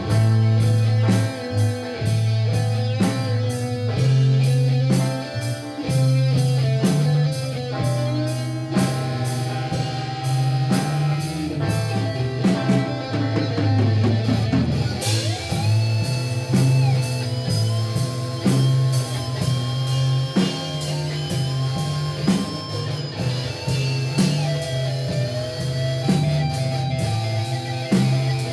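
Rough demo recording of a rock band playing an instrumental passage: electric guitars over bass guitar and a drum kit keeping a steady beat. About halfway through, a high lead guitar line comes in with long held, sliding notes.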